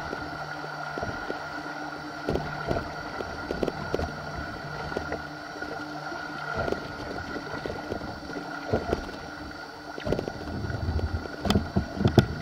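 River water splashing and slapping against a camera held at water level, with wind on the microphone and a steady faint hum underneath. The splashes come irregularly and bunch up louder near the end.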